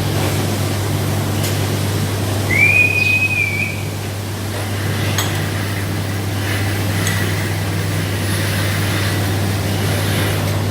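Steady low hum of rotary milking parlour machinery running. About two and a half seconds in, a short high-pitched whistle rises and holds for about a second, and a few faint clicks follow later.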